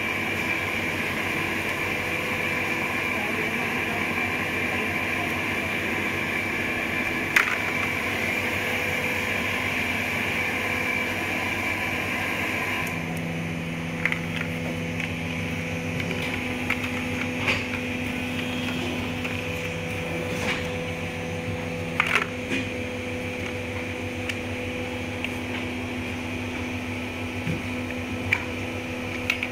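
A steady mechanical hum made of several held tones, whose mix of tones changes about 13 seconds in. Over it come a few sharp clicks of hard plastic coat hangers knocking together as they are handled.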